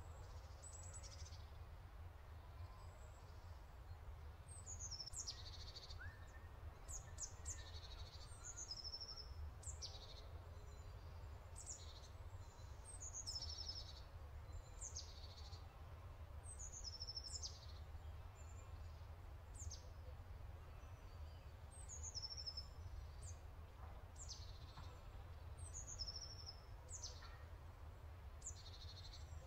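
Small birds chirping faintly, short high downward-sweeping chirps about once a second, over a steady low hum.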